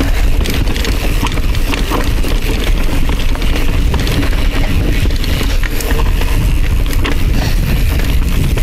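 Mountain bike riding fast down a rough, rocky trail: a continuous rumble of tyres over rock and dirt, with frequent sharp clacks and rattles from the bike over rocks.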